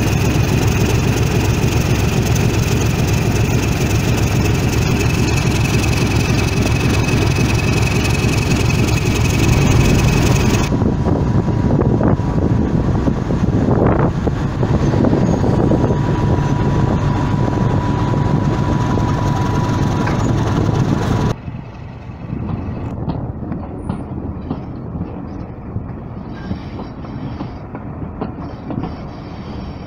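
Brush Type 2 (Class 31) diesel locomotive D5627 idling with a steady low rumble and a thin whine. Midway there is a single sharp knock as it buffers up to a coach. Near the end comes the quieter rumble of a coach running along the line, with the wheels clicking over the rail joints.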